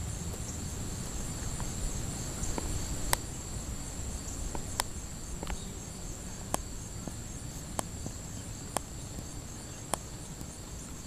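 Steady high-pitched insect trilling, with a low background rumble. Sharp clicks sound every second or two from about three seconds in.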